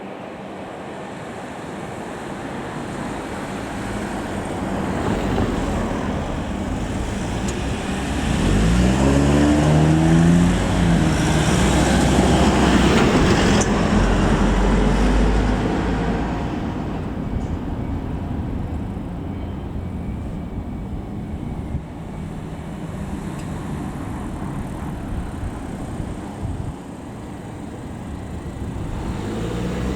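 JR DE10 diesel-hydraulic locomotive hauling an EF65 electric locomotive past a level crossing. The rumble builds, with the diesel engine note rising about eight seconds in. It is loudest around the middle, then fades away.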